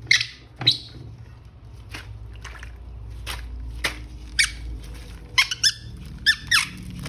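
Plastic squeaking as a toy and its packaging are handled: short high squeaks, clustered near the start and again in the second half, with a few sharp clicks between.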